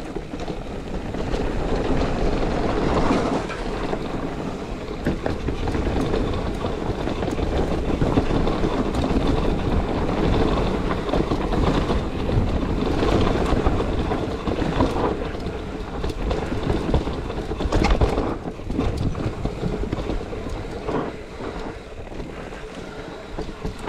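Mountain bike riding fast down a rough trail: the tyres roll over rough ground and the bike rattles with many small knocks, with wind rushing over the microphone.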